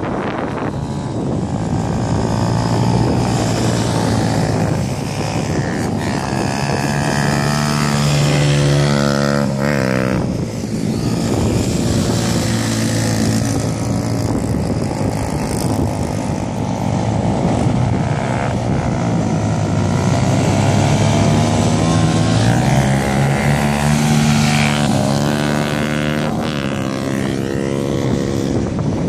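Off-road motorcycle engines running and revving, the pitch climbing and falling with the throttle as the bikes accelerate, with two clear rising runs, one about a third of the way in and one near the end. A steady rushing noise of wind and surf lies underneath.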